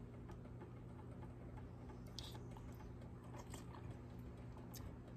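A metal spoon clinks faintly against a ceramic soup bowl, with one brief soft slurp-like hiss about two seconds in, as soup is spooned up and eaten. A low steady hum runs underneath.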